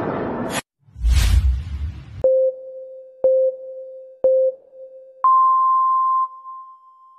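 Countdown sound effect: three short beeps a second apart, then one higher, longer beep for the start. Before them, an intro sound cuts off suddenly, followed by a whoosh with a deep boom.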